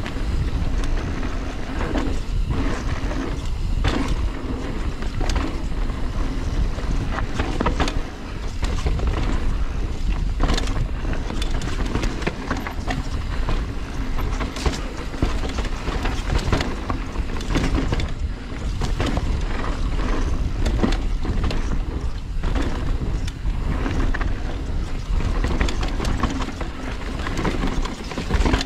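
Mountain bike riding fast down a rough trail: tyres running on dirt and rock, with frequent sharp knocks and rattles from the bike over bumps, over a steady low rumble.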